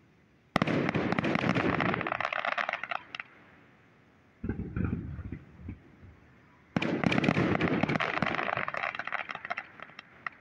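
Aerial fireworks shells bursting: a sharp bang about half a second in and another about two-thirds of the way through, each followed by a few seconds of dense crackling, with softer pops between them.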